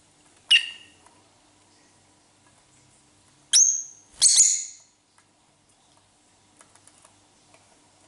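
Blue lovebird (Agapornis) giving three short, shrill calls: one about half a second in, then two close together around the middle, the second a little longer. A few faint ticks follow near the end.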